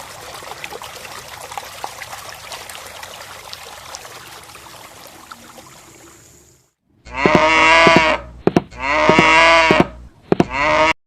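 A faint trickling sound that fades out over the first six seconds, then a cow mooing three times, two long calls and a short one near the end.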